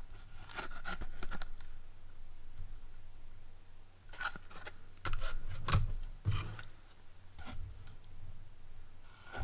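New pliers and their packaging being handled: clusters of sharp clicks and scrapes.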